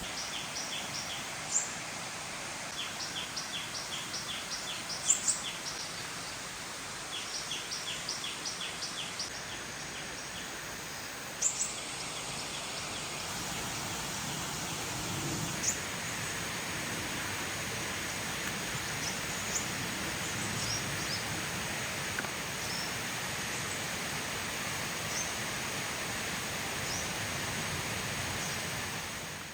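Forest ambience: a bird calling in quick runs of short high chirps, about four a second, over a steady background hiss, with a few sharper single calls later on. The sound fades out at the end.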